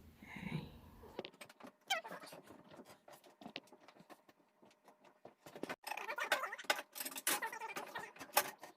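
Faint, irregular clicking and rattling, denser and louder in the second half, with a few brief squeaks.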